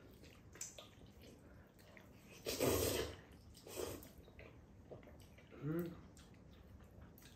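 Noodles in black bean sauce being slurped from a bowl: one long loud slurp about two and a half seconds in and a shorter one about a second later, with faint clicks of utensils on the bowls.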